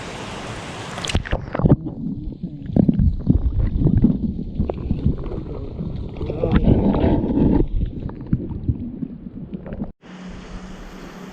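Muffled water sloshing and gurgling with irregular knocks and bumps of handling on the microphone, as a released trout is slipped back into the river. About ten seconds in it cuts off suddenly to a steady rush of flowing water.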